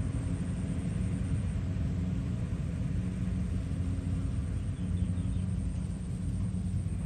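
Farm machinery engines, the tractor and the rice combine harvester, running steadily: a low droning hum.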